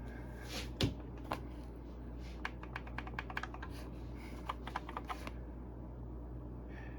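Computer keyboard being typed on: a knock a little under a second in, then short runs of quick clicking keystrokes that stop about five seconds in, over a steady low hum.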